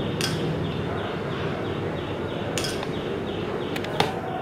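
A spoon clinking a few times against a glass bowl as thick sweetened curd is spooned out, over a steady background hiss.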